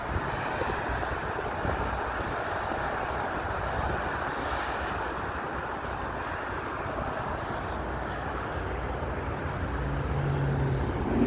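Steady rumble of passing road traffic. Near the end a low engine hum comes in and grows louder as a vehicle comes closer.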